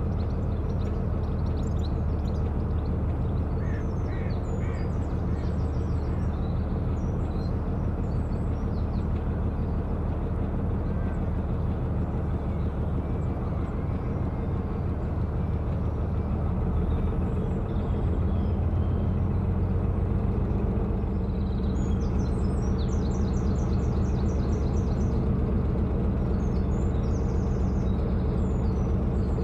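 Narrowboat's diesel engine running steadily at cruising speed, a low even note; about two-thirds of the way through the note shifts and gets a little louder. Birds chirp now and then over it.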